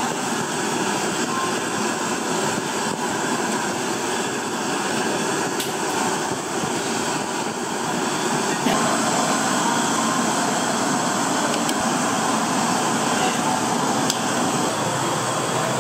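Steady rushing noise of a street-food stall's kitchen, with gas burners lit under the pots, a little louder from about halfway. A few light clinks of a ladle against the metal pot as the congee is stirred.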